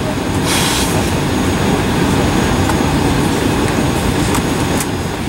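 Steady low rumble of cabin noise inside an Embraer E190 moving on the ground, its two GE CF34-10E turbofan engines running at low power. A short hiss comes about half a second in.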